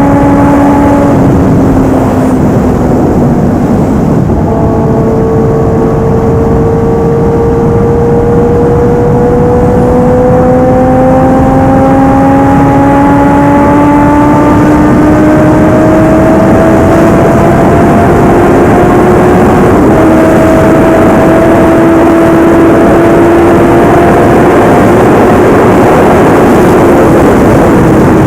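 Kawasaki ZX-10R inline-four engine with a full exhaust system, on the move under heavy wind noise. The revs drop about a second in, then climb slowly and steadily through the gears, step at a shift about two-thirds of the way through, and fall near the end.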